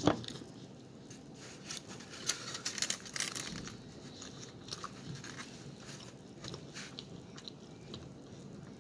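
Close-up eating sounds from a mukbang: biting and chewing with short crisp crunches, thickest about two to three and a half seconds in, then scattered smaller clicks of chewing.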